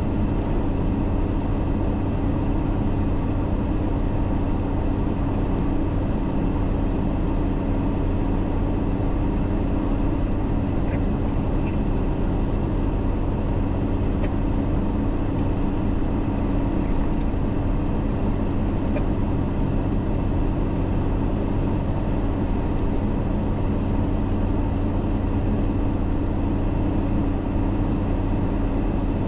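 MAN truck's diesel engine running at a steady, even pitch, with road noise, while the truck drives along.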